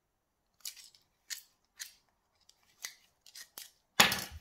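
Short, scratchy scrapes and clicks, about seven of them spread over four seconds, as the chain-oil hole in a plastic electric chainsaw housing is scraped clean, then a louder clatter near the end.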